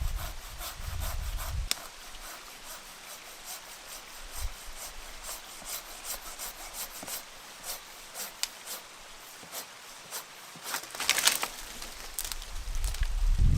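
Hand saw rasping through wood in a long run of short strokes, about two a second, a little louder about eleven seconds in. Wind buffets the microphone at the start and the end.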